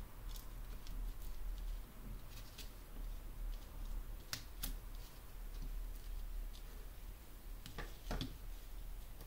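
Hands handling paper on a desk with a small metal craft tool: light rustles and small clicks, with two sharper ticks about four and a half seconds in and a brief cluster of rustling near the end.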